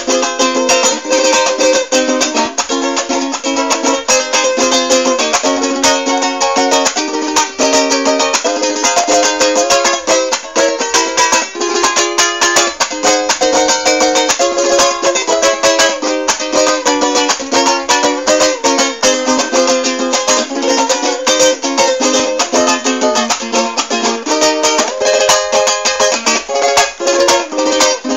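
A small guitar-like plucked string instrument strummed quickly and continuously, playing a lively chord-and-melody piece without singing.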